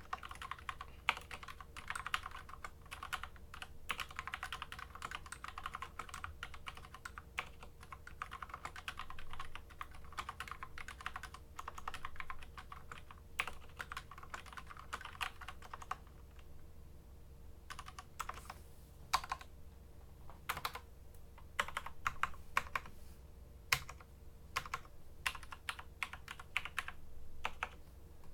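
Typing on a custom-tuned SteelSeries Apex M500 mechanical keyboard: fast, continuous keystrokes for roughly the first half, then slower, separate key presses with short gaps.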